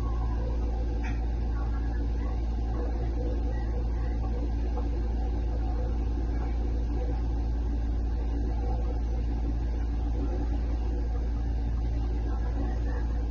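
Refrigerator running with a loud, steady low hum and a constant drone above it, unchanging throughout.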